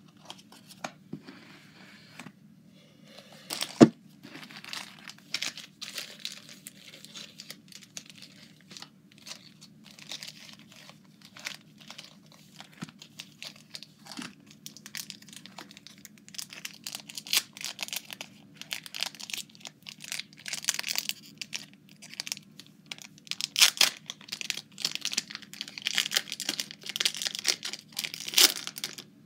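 Foil wrapper of a Pokémon booster pack crinkling and tearing, with the cards rustling and clicking as they are handled. There is a sharp snap about four seconds in, and the crackling gets busier in the second half.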